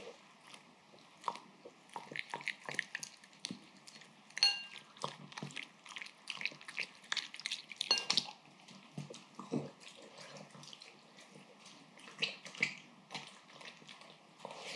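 A papillon eating udon in broth from a glazed ceramic bowl: a quick run of wet lapping and small chewing clicks. The bowl rings briefly twice when knocked, about four and a half and eight seconds in.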